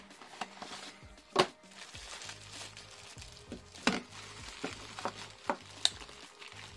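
Handling of the small cardboard box the charging base comes in, with several sharp taps and knocks of card, then the crinkling and rustling of the thin white wrapping as it is pulled off the charging base.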